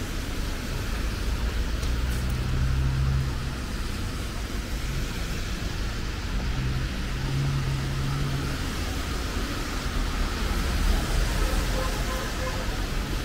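City street traffic on a wet road: a steady hiss of tyres and passing vehicles over a low rumble, with a low engine hum that swells twice, about two seconds in and again around six to eight seconds.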